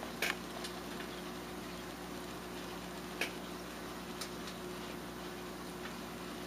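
Bala sharks making sharp clicking noises as they feed: about eight irregular clicks, two loudest just after the start and about three seconds in, over a steady low hum.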